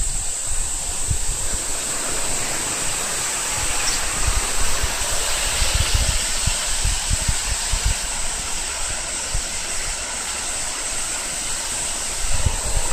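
Cicadas calling in a steady high-pitched chorus, with wind gusting on the microphone.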